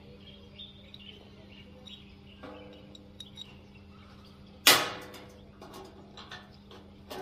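Metal struck hard once, a sharp clang that rings out briefly, with a quieter ringing tap earlier and a few light clinks after. A steady low hum runs underneath.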